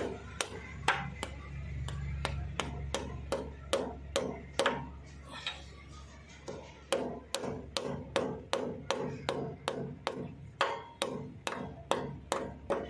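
Hammer striking a steel drift to tap a new oil seal into its housing on a tractor engine: a long run of sharp metal-on-metal knocks, two or three a second, with a brief pause about halfway.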